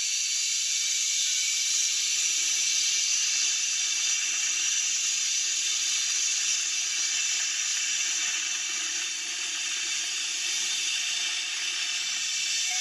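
Steady rushing hiss of a zip line ride: the trolley running along the steel cable, with wind, played back through laptop speakers.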